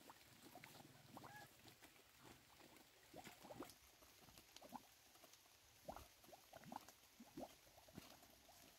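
Faint, scattered rustling and crackling of mesh netting being pulled through dry leaves and brush.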